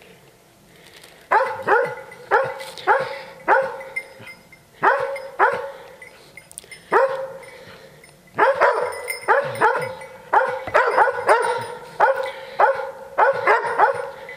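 Hunting hounds baying at a cornered young wild boar. The barks drop in pitch. They come one at a time for the first half, then fast and close together from about eight seconds in.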